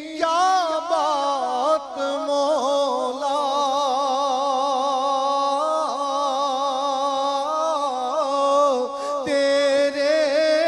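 A male naat reciter singing a naat, drawing out long, wavering melismatic notes, with short breaks about two seconds in and near the end.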